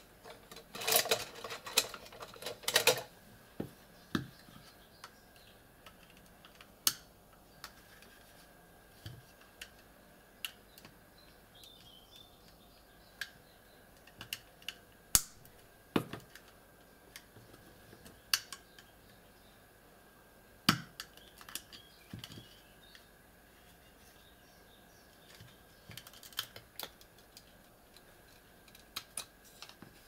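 Sharp clicks, taps and snaps of hard plastic as the black plastic case of a LogiLink USB hub is pried apart with a metal pry tool and its clips let go. A dense run of rattling clicks comes in the first few seconds, then single clicks spaced out.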